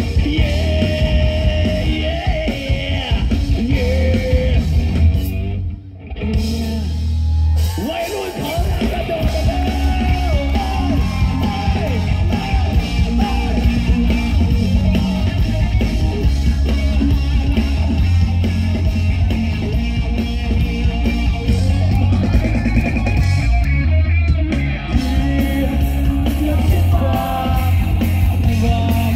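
Rock band playing live through a PA: electric guitars, bass guitar and drums with a singer's shouted vocals. The band breaks off briefly about six seconds in, then comes back in.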